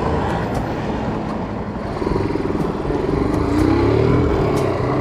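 Motorcycle engine running while riding, heard with wind rush over the microphone. About two seconds in the engine note gets louder and rises in pitch, then eases off.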